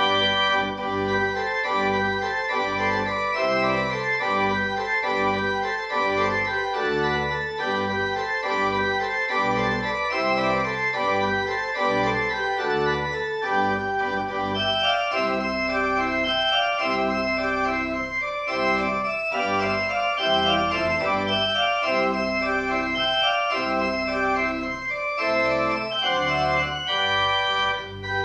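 Pipe organ playing: full chords held in the upper voices over a moving bass line of short notes, about two a second.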